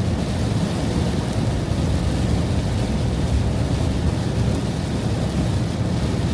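Thunderstorm noise: a steady, deep rumbling haze with no distinct claps.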